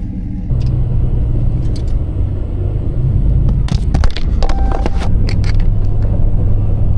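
Jeep engine running with a steady low rumble heard from inside the cab, with a few sharp clicks partway through and a short electronic beep.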